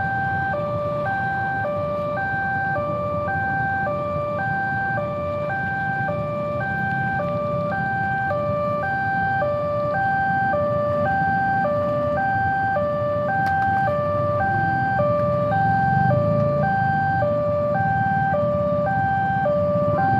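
Railway level-crossing warning alarm: an electronic chime alternating steadily between a high and a low tone, about one high-low pair a second, signalling that a train is approaching and the barrier is down. A low rumble grows louder near the end.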